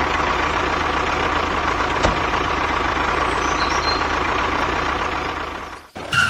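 A truck engine running steadily, a rumbling noise with a low hum and a faint steady tone, fading out near the end.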